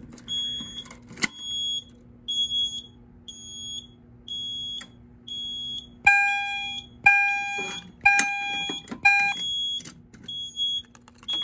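A high electronic fire-alarm beep repeating steadily about every three-quarters of a second. About six seconds in, a wall-mounted fire alarm strobe's sounder gives four louder, lower steady tones about a second apart: the audible walk-test signal after a pull station is tripped. Two brief clicks come early on.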